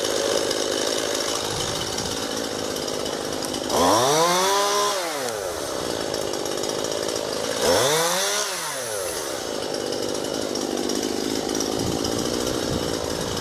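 Chainsaw engine running steadily, revved up twice for a second or two each time, its pitch climbing and then falling back.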